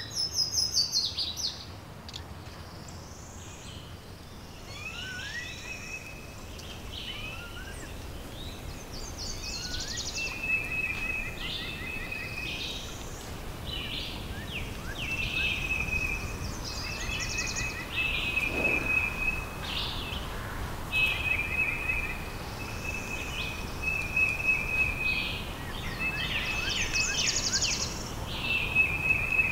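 Several wild birds singing and calling. One bird repeats the same short trilled phrase again and again from about ten seconds in, while other chirps and short rising whistles sound around it over a steady low background noise.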